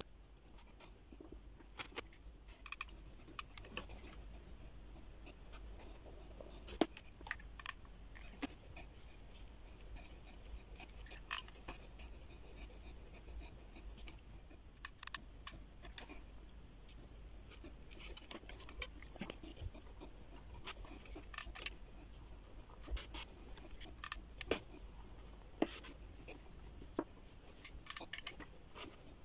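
Faint, scattered small clicks, taps and scratches of hands handling wooden ice-cream sticks and jute twine, over a low steady hum.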